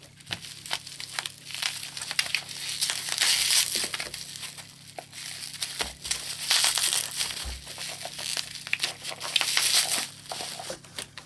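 Plastic bubble wrap crinkling and rustling in irregular bursts, with scattered small clicks, as it is cut with scissors and pulled off a small package by hand.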